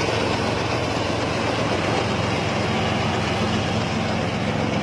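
An engine-driven machine running steadily: a constant low engine hum under dense mechanical noise, with no change in speed.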